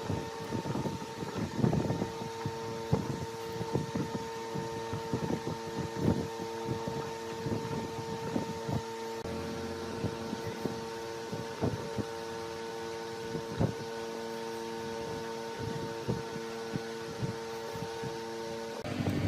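Large wood lathe running with a steady electric hum, with irregular knocks and scrapes of wood being worked. The hum cuts off shortly before the end.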